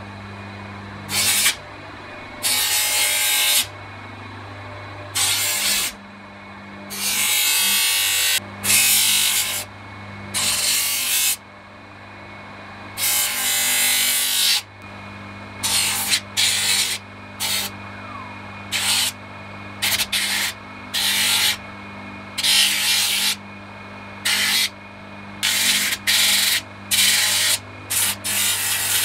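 An INGCO electric motor fitted with a sanding disc on its shaft starts up and runs with a steady hum, while a wooden tomahawk handle is pressed against the spinning disc over and over, each pass a loud rasping hiss lasting about a second.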